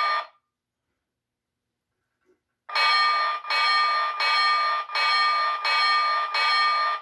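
Bell feature of a Williams by Bachmann O-scale Burlington diesel model locomotive. One ring at the very start, a pause of over two seconds, then steady repeated clanging at about three strokes every two seconds.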